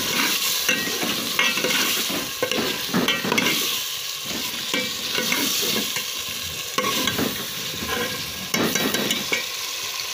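Cubed potatoes and peas sizzling in oil in a metal pot, with a metal ladle scraping and clinking against the pot again and again as they are stirred. They are being fried so that they soften.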